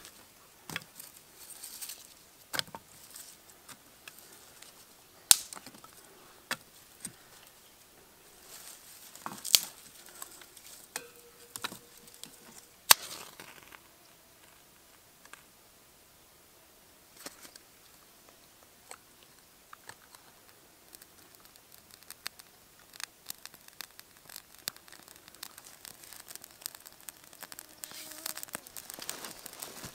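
Dry twigs and brush being snapped and laid into a stone fire ring as kindling, with scattered rustling and a few sharp snaps. Near the end the tinder is lit and small crackles start.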